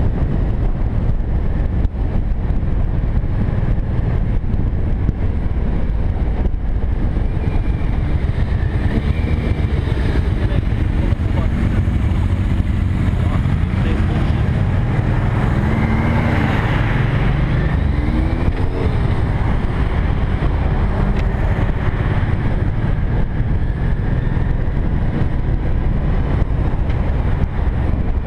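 Motorcycle riding noise heard from a camera on a moving cruiser: a steady low engine rumble mixed with wind on the microphone. Near the middle the engine note rises and falls a few times.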